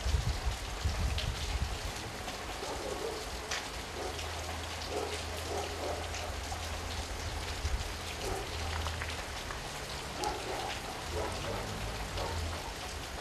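Steady rain pattering on wet ground and puddles, an even hiss with a faint low rumble underneath.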